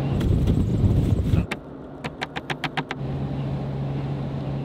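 A vehicle driving through a snowstorm: a low rumble of wind and road noise for about a second and a half, then a quick run of about seven sharp clicks, then a steady low engine hum.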